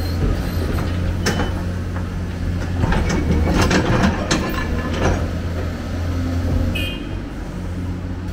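Hyundai crawler excavator's diesel engine running steadily under hydraulic load as the bucket digs into brick rubble, with scraping and clattering of broken masonry, heaviest between about three and five seconds in. A brief high squeak near the end.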